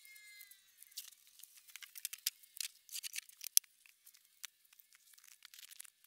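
Faint crackling and scraping of a piece of rigid foam insulation board being handled: a scatter of small sharp clicks and crackles, thickest between about one and four seconds in.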